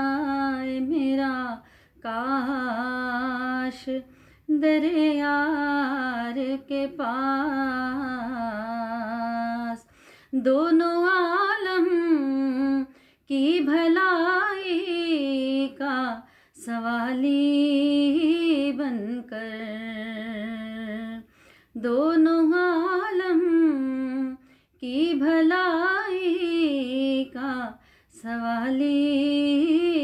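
A single unaccompanied voice singing a naat in wavering, ornamented phrases of two to three seconds, with short breaks for breath between them.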